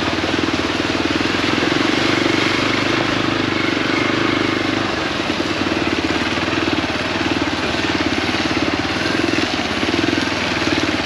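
Hero Xpulse 200 4V's single-cylinder engine running steadily while the bike is ridden over a wet dirt road, its rapid firing pulses heard over a constant hiss.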